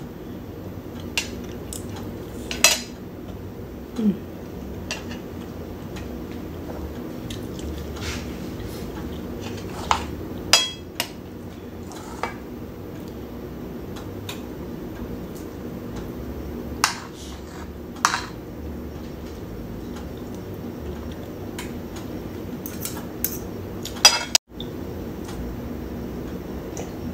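Spoon and fork clinking and scraping on a dinner plate while eating, in scattered sharp clinks over a steady low hum.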